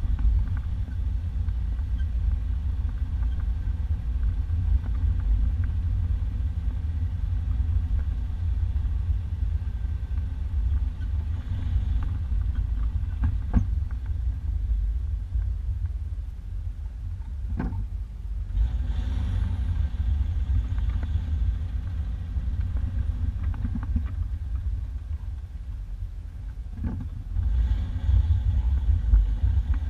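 1991 Isuzu Trooper driving on a dirt two-track, heard from inside the cab: a steady low rumble of engine and tyres, with a few sharp knocks and rattles.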